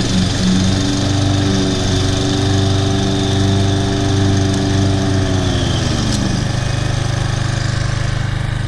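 Husqvarna walk-behind mower's Briggs & Stratton 7.75 gross-torque single-cylinder engine running steadily with the blade engaged while mowing. A whine joins about a second in, then drops in pitch and fades out about six seconds in.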